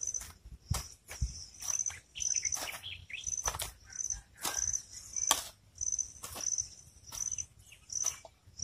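Outdoor field ambience: an insect chirping in short, high-pitched pulses, repeated about every half second to a second, with irregular sharp clicks and a few faint bird calls.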